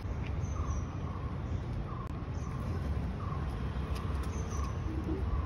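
Outdoor background of a steady low rumble, with a short chirp repeating about every two-thirds of a second and a few fainter, higher chirps.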